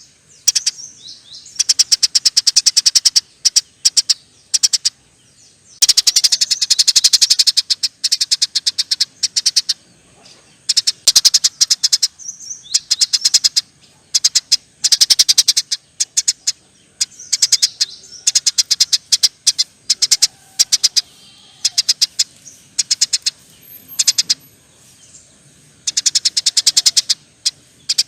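Eurasian tree sparrows chattering: long runs of very fast, sharp chirps, each run lasting about one to two seconds, with short pauses between them.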